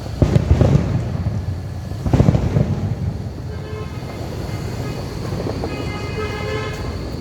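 Fireworks booming in quick volleys, a cluster of bangs just after the start and another about two seconds in. Later a horn sounds on one steady pitch, briefly and then again for about a second near the end.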